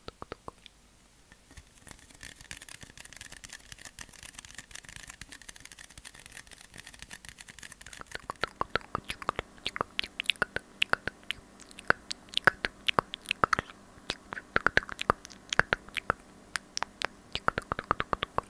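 ASMR mouth sounds made right at a small lapel microphone held to the lips: rapid wet clicks and smacks, several a second, starting about halfway through. Before that, a soft steady hiss with faint clicks.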